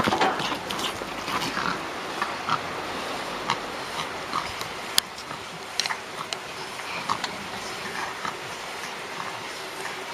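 Two domestic cats in a standoff just after a scuffle, the tail of the scuffle noise fading in the first moment, then low growling with a few short sounds and faint scattered clicks over a steady background hiss.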